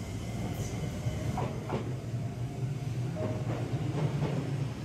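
Shizuoka Railway A3000-series electric train pulling away from the platform, with a steady low hum and its wheels clicking over rail joints several times.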